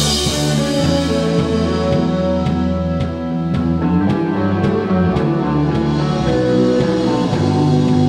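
Rock band playing live on electric guitars, bass guitar and drum kit, with a cymbal crash at the start and drum hits about twice a second.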